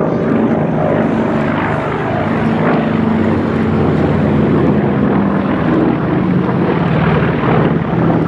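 Piston engines of Second World War propeller fighters running as they fly in the air display, giving a steady engine note with no clear rise or fall.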